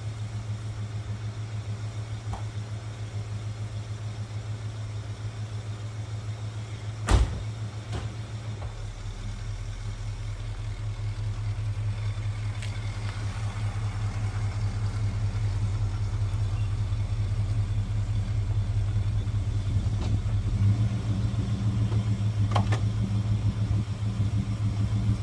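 Plymouth Volare's engine idling steadily. About seven seconds in a car door shuts with one loud thump. The engine then pulls a little harder and louder as the car is driven slowly forward.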